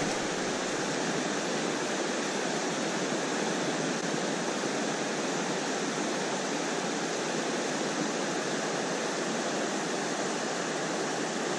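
Steady rush of river water flowing over a riffle.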